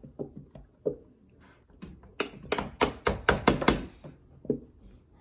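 Plastic Elmer's glue bottles squeezed and shaken upside down over a plastic tub, giving sharp knocks and taps: a few scattered ones, then a quick run of about eight between two and four seconds in.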